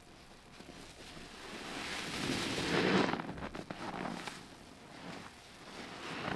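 A soaked sponge squeezed by hand: liquid squelches and pours out in a swell that peaks about three seconds in, then crackles and drips away. A smaller squeeze follows near the end.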